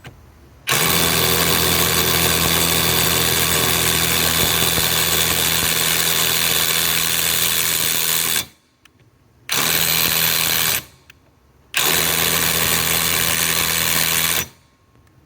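Ridgid Octane mid-torque cordless impact wrench hammering on a seized 1-1/2 inch nut in three bursts: one long run of about eight seconds, then two short ones. The nut does not break loose.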